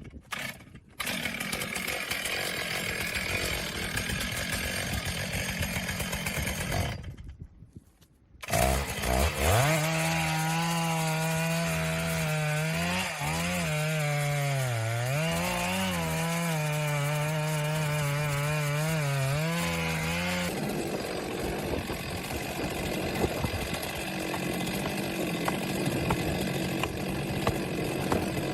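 Chainsaws cutting wood in a run of short cuts, the engine's pitch dipping and recovering as it bogs under load in the cut. A brief near-silent break comes about eight seconds in.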